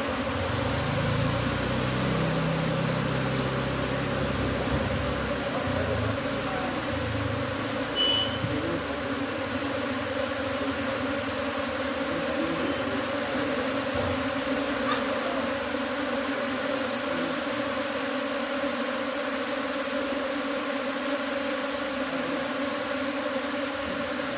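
A swarm of honeybees in flight, making a steady, dense buzz of many wings. There is a brief high chirp about eight seconds in.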